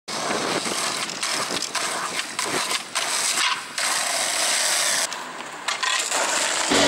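Skateboard wheels rolling over street pavement: a rough, steady rumble that breaks off and resumes abruptly several times.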